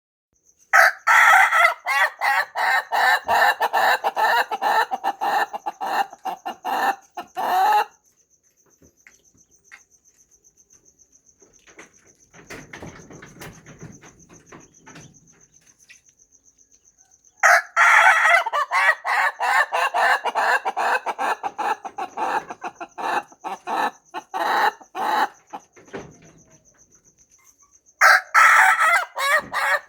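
Rooster crowing at length, each crow a long string of rapid, choppy notes lasting about seven seconds; it crows twice and starts a third crow near the end.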